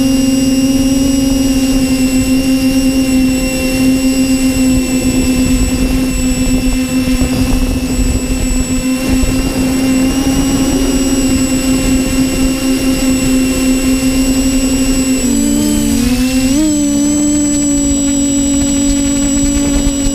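TBS Discovery Pro quadcopter's electric motors and propellers humming steadily as heard by its onboard GoPro, with wind rumble underneath. About fifteen seconds in, the pitch dips and wobbles briefly as the motors change speed, then settles slightly higher.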